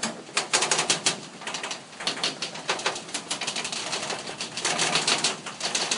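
Birds chirping: a dense, rapid, irregular clicking chatter.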